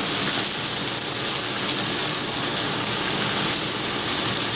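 Bone-in pork chops sizzling steadily on a hot griddle plate, with a brief louder spell about three and a half seconds in.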